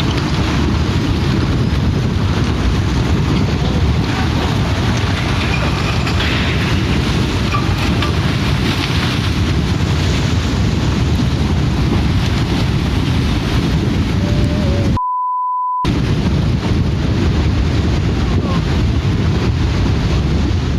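Loud, steady rushing of wind and water, with wind buffeting the microphone. About fifteen seconds in, the sound cuts out for under a second and a single steady beep at about 1 kHz stands in its place, like a censor bleep.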